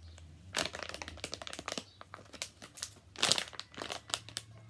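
Plastic squishy packaging crinkling and crackling as it is handled, in irregular crackles with a few louder ones, the loudest about three seconds in.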